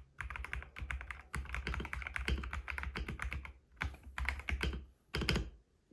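Feker IK75 Ultra mechanical keyboard with Gateron Pro Yellow linear switches being typed on fast: a rapid run of key clacks. There are two short breaks, about three and a half and five seconds in, and the typing stops shortly before the end.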